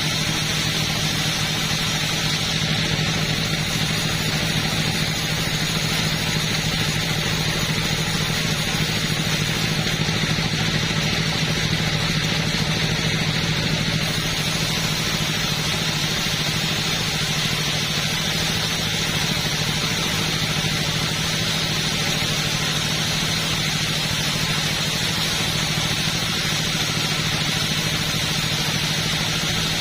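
Two-stroke chainsaw engine running at a steady, unchanging pitch.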